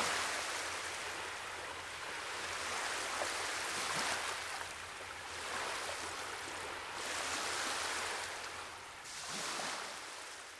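Ocean surf rushing against rocky shore, swelling and easing every couple of seconds, fading near the end.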